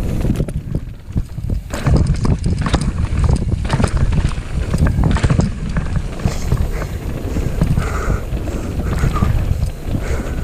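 Mountain bike riding fast down a rough dirt trail: wind buffeting the microphone, with the bike's chain and frame rattling in quick clicks and knocks over the bumps.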